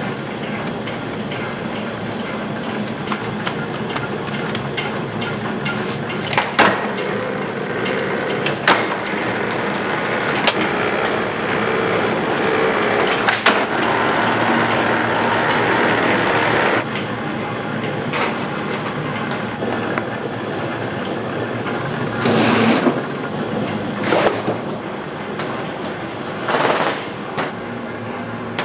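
Confectionery-making machinery running with a steady rattling clatter, with occasional sharp knocks and a longer clatter about 22 seconds in.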